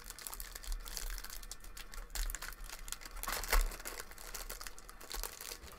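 Foil wrapper of a 2022 Topps Series 1 retail baseball card pack crinkling and tearing as it is ripped open by hand, loudest about three and a half seconds in.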